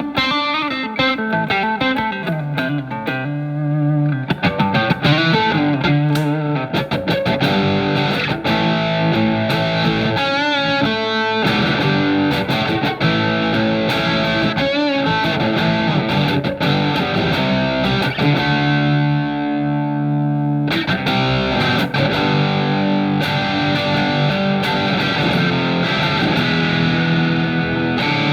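Telecaster electric guitar played through a Marshall MG15FX amplifier with some distortion: a run of single notes, bends with vibrato and chords.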